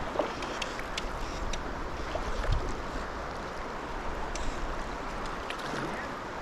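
Steady rush of stream water, with a few faint scattered clicks.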